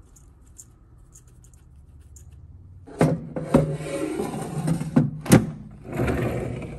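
Air fryer basket of seasoned cauliflower florets being handled, rattling with several sharp knocks, then slid into the air fryer with a rushing scrape near the end.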